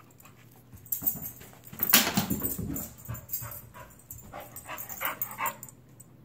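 A dog whimpering excitedly around an iFetch Too automatic ball launcher, with a sudden loud burst about two seconds in as the launcher shoots out a tennis ball.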